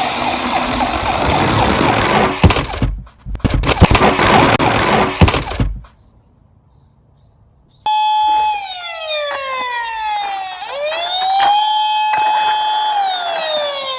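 Die-cast toy minicars rolling and clattering down a slope, with sharp knocks, for about six seconds; then, after a short hush, a siren sound effect wails, its pitch sliding down, swooping back up and holding, then sliding down again.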